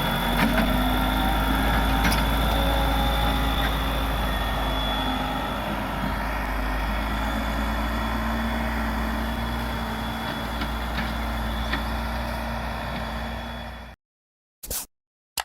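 Case 580 Super L backhoe loader's diesel engine running steadily with a low rumble and a thin high whine. It cuts off suddenly near the end, followed by two short blips.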